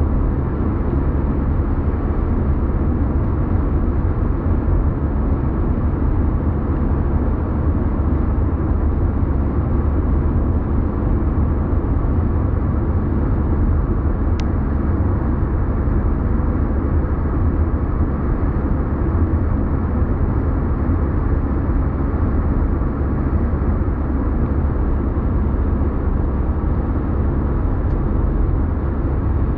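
Steady car road and engine noise heard from inside the cabin while driving on a motorway, mostly a low rumble that does not change.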